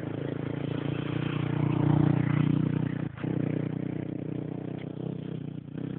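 ATV quad engine running at steady revs, growing louder for the first two seconds and then slowly fading, with a brief break about three seconds in.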